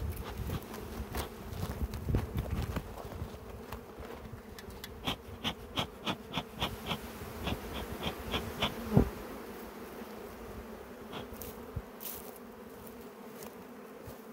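Honeybees buzzing around an open hive: a steady, even hum. Over it, a quick run of sharp clicks from about five seconds in, and a single knock about nine seconds in.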